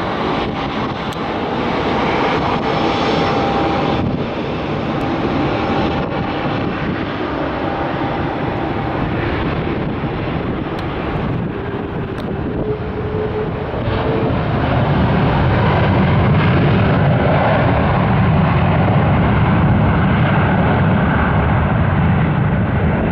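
Boeing 767 jet engines heard during landing and rollout: a steady roar with a faint whine in it, growing louder and deeper about two-thirds of the way through as the airliner rolls down the runway.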